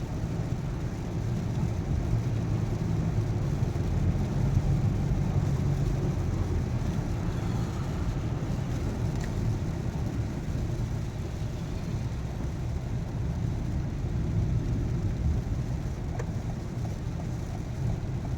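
Car cabin noise while driving: a steady low rumble of engine and tyres on a rain-wet road, with a couple of faint clicks.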